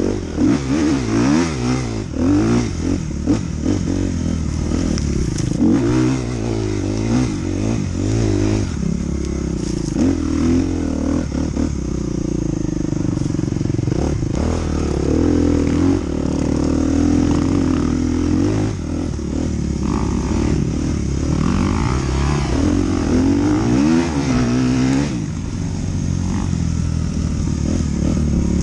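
Dirt bike engine revving up and down as the bike is ridden off-road, its pitch rising and falling with each throttle blip and gear change, with occasional knocks and rattles from the bike over rough ground.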